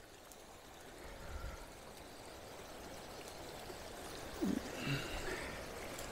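Faint, steady rush of a river's running water. A brief low vocal murmur comes about four and a half seconds in.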